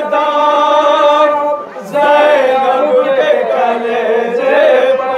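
Men's voices chanting a noha, a Shia mourning lament, unaccompanied, in long held, slowly wavering notes. There is a brief break for breath about one and a half seconds in.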